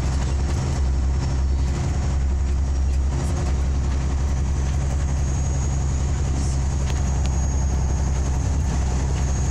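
Scania OmniLink CL94UB city bus on the move, heard from inside the passenger cabin: a steady low engine drone with road and tyre rumble. A faint high whine joins about halfway through.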